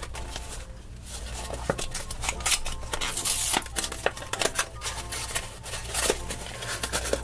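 Small paperboard box being torn open by hand: the end flap ripped and pulled back, with scattered crackling, tearing and tapping of the thin cardboard.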